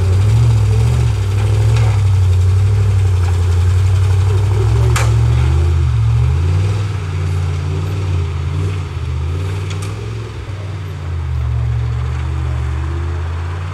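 Off-road jeep's engine running at low revs as it crawls over rough forest ground, its pitch rising and falling with the throttle. A single sharp knock about five seconds in.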